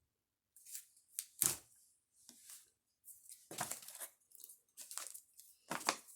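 Cardboard and plastic-wrapped fireworks packages being handled and rustled, in a string of short crinkling, scraping bursts, with a louder knock about a second and a half in as one is set down.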